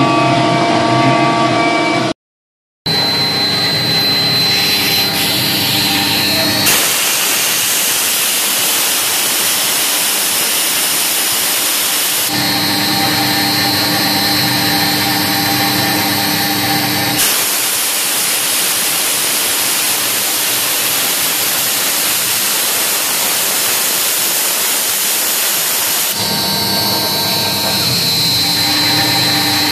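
CNC gantry router spindle running with a steady high whine as a single-flute upcut bit cuts the composite nameplate sheet. Twice it is joined by several seconds of loud hiss that starts and stops abruptly. There is a brief dropout to silence about two seconds in.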